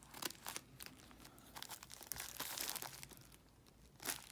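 An Amazon shipping package being handled and cut open: crinkling and crackling of the packaging, with a longer tearing, rasping stretch about two seconds in and sharper crackles again near the end.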